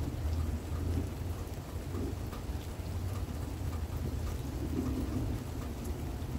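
Rain falling steadily with a low, continuous rumble of thunder, and scattered raindrops ticking close by.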